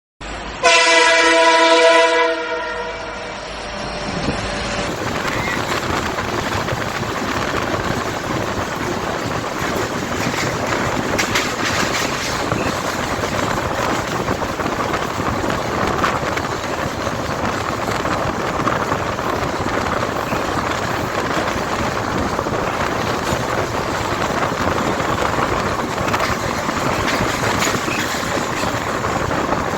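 A WAP-7 electric locomotive's horn sounds once, a loud chord of several tones lasting about a second and a half and dying away. Then the train runs past with a steady rumble and clatter of wheels on rails.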